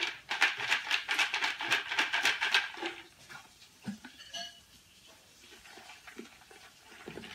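Folded paper raffle slips tumbling and rattling inside a clear plastic jar as it is shaken, with a dense rattle for about three seconds. After that come quieter, scattered rustles and light taps as a slip is drawn out.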